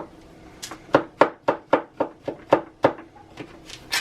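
A kitchen knife chopping food on a cutting board in quick, even strokes, about four a second, with a brief pause near the end.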